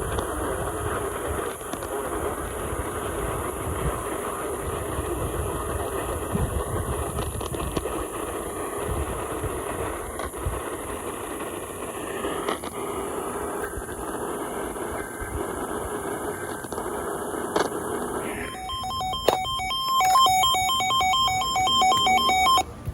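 AM radio hiss and static, then about eighteen seconds in a loud run of electronic Emergency Alert System tones breaks in: steady pitches chopped into rapid, even beeps for about four seconds, the start of an emergency alert.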